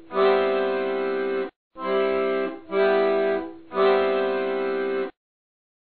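Background music of held chords: four in a row with a short break after the first, cutting off suddenly about five seconds in.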